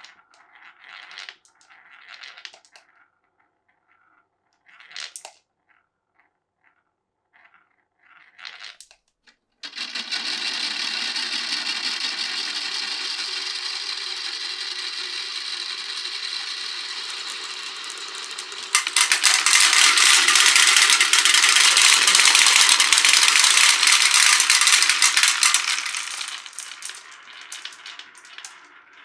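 Marbles clicking along a wooden marble run, first one by one, then many at once in a dense, continuous clatter that starts suddenly about a third of the way in. The clatter grows louder near the middle and dies away to scattered clicks near the end.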